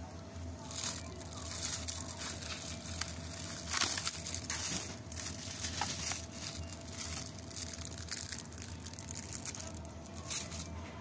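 Plastic produce bags crinkling and rustling close to the microphone, a run of crackles that is loudest about four seconds in.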